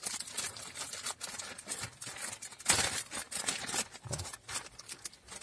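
Plastic film wrapper of a new cabin air filter crinkling as it is pulled and torn open by hand, with one louder, longer rip a little past halfway.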